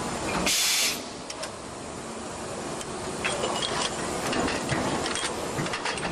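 Automated cold forging line, running: a short, loud hiss of compressed air about half a second in, over steady machine noise with scattered clicks and knocks.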